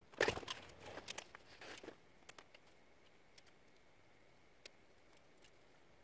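Small plastic clicks and the rustle of wiring as a van's dashboard switch panel and its wires are handled, busiest in the first two seconds. After that only a few faint ticks and a faint steady high tone remain.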